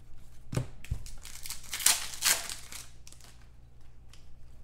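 Trading-card pack wrapper crinkling and tearing as a pack is opened and the cards handled, in many short, sharp rustles. There are two soft knocks in the first second, and the loudest crinkles come about two seconds in.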